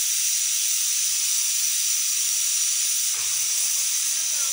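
Pressure cooker hissing steadily as steam escapes from its vent.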